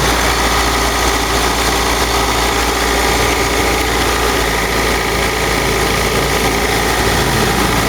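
Car engine held at raised revs, running steadily, with a high whistling, bell-like ringing that grows stronger about three seconds in. The noise goes away when water is poured on the drive belt, which points to the belt as its source.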